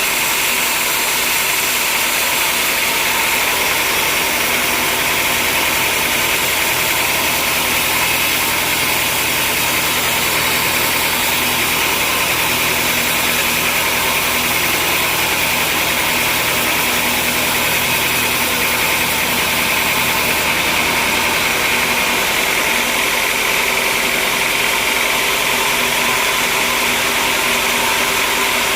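Sawmill machinery running steadily: a continuous mechanical drone with a strong hiss, unchanging throughout.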